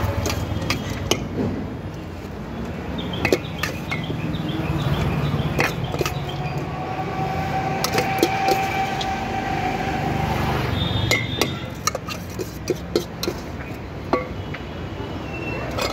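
Steel spoon clinking and scraping against a stainless-steel bowl as bhel puri is tossed and mixed: a quick, irregular run of sharp metallic clinks. Underneath is a low street rumble, and a steady tone is held for about four seconds midway.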